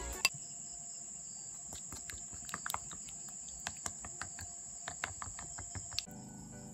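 Plastic spatula scraping against a glass bowl and clicking on it in irregular light ticks as it stirs a starchy powder mixture. A steady high-pitched whine runs underneath, and soft background music comes back in about six seconds in.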